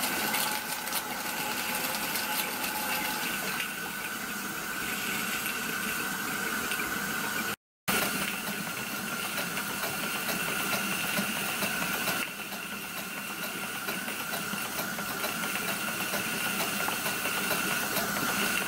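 Live steam hissing from a miniature steam locomotive's injector during a trial, with a steady whistle-like tone over the hiss. The injector is not picking up fully. The sound breaks off for a moment about halfway through.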